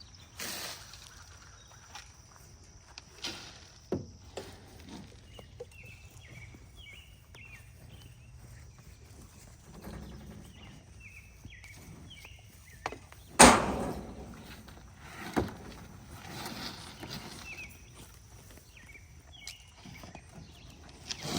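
Footsteps and scattered knocks and clanks, with one loud sharp bang a little past halfway and a smaller one about two seconds later.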